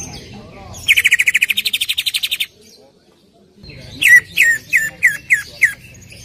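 Greater green leafbird (cucak ijo) singing: a fast trill of about a dozen sharp repeated notes a second for a second and a half, then after a short pause six loud downward-slurred whistles.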